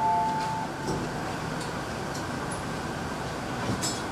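A two-tone electronic station chime, an upper and a lower tone held together, dies away about half a second in. A steady even hum of the station platform follows, with a brief click near the end.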